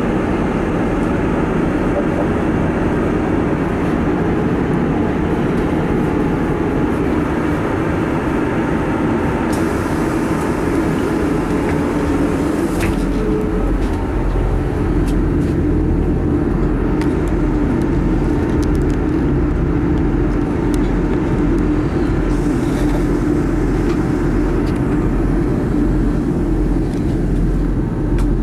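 Cabin noise aboard a Class 159 diesel multiple unit: the underfloor diesel engine and the wheels on the rails running steadily. From about halfway a low, even throb comes in as the train slows into a station.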